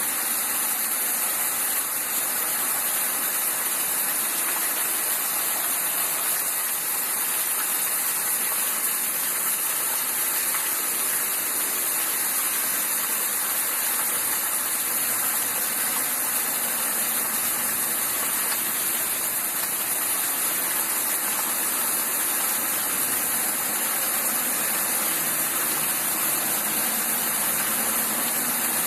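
Steady rush of water from heavy rain and runoff flooding a street.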